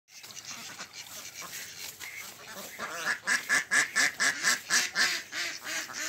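Domestic ducks quacking: soft, scattered calls at first, then from about three seconds in a fast run of loud quacks, about four a second.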